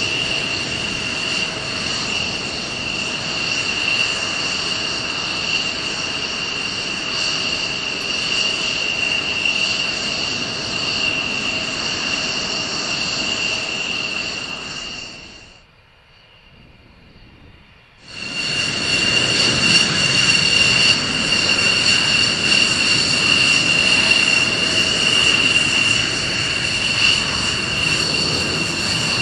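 F-16 fighter's single turbofan engine at low power during taxi: a steady, high-pitched whine over a rushing jet noise. It drops away for about two seconds a little past halfway, then comes back unchanged.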